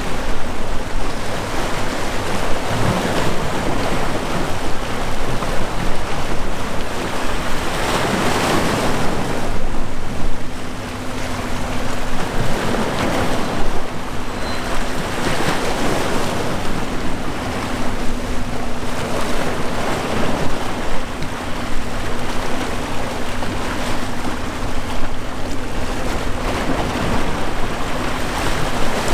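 Outdoor rushing of wind and water, swelling and easing every few seconds, with a faint steady low hum underneath.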